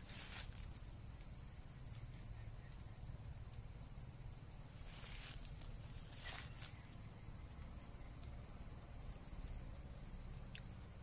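Insects chirping in short, high-pitched pulses at irregular intervals, with a few brief soft rustles of hands peeling a persimmon.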